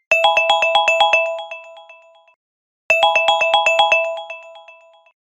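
Countdown timer's end alarm: an electronic ringtone-style melody of rapid notes, about eight a second. It plays twice, the second run starting about three seconds in, and each run fades out over about two seconds.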